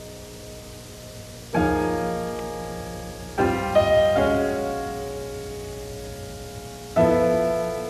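Slow, soft piano music: single chords struck and left to ring and fade, one about a second and a half in, two close together a couple of seconds later, and another near the end.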